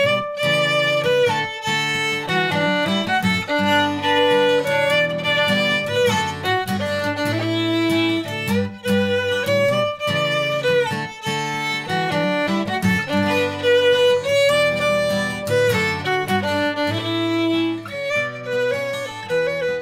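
Shetland fiddle tune on the violin, bowed with held and moving notes, with acoustic guitar chords underneath.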